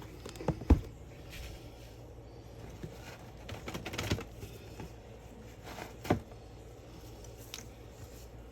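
Handling noises on a tabletop as sealed trading-card boxes are moved and opened: two sharp knocks about half a second in, a patch of rustling and tapping around four seconds, and another knock about six seconds in.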